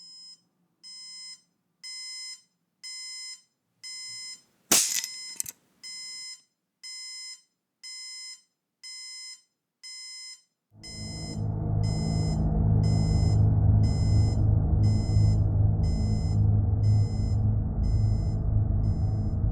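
Electronic alarm clock beeping about once a second, each beep a short multi-pitch tone, with two sharp clicks a little under halfway. The beeping stops near the middle, and a loud, steady, low rumble takes over.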